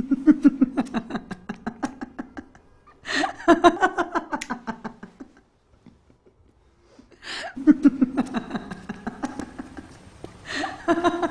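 Laughter in several bouts of quick pulsed ha-ha sounds, with short pauses between them and a quiet gap about halfway through.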